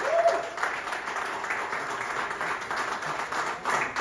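Audience applauding with many overlapping claps, and a short whoop right at the start.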